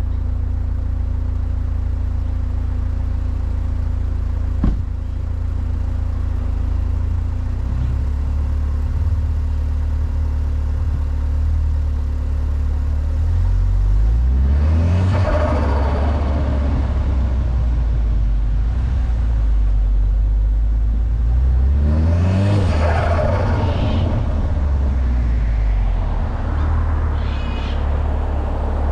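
VW Golf R MK6's turbocharged four-cylinder engine running low and steady, then revving up under acceleration twice, once around the middle and again a little later, each time settling back down. A single sharp click comes early on.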